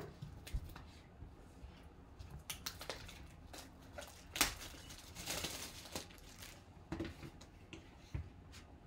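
Plastic shrink-wrap being torn and peeled off a sealed trading-card hobby box: faint crinkling and rustling, with a louder rip about four seconds in and a longer crinkle just after.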